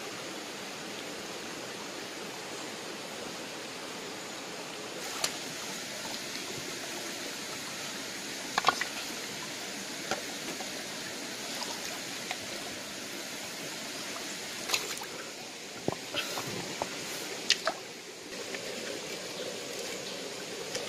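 Steady rushing of a shallow flowing stream. From about five seconds in, a scattering of short sharp clicks and knocks sounds over it.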